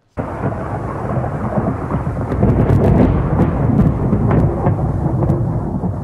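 Thunder: a deep rolling rumble that starts suddenly and grows louder about halfway through, with a run of sharp crackling cracks, then rumbles on.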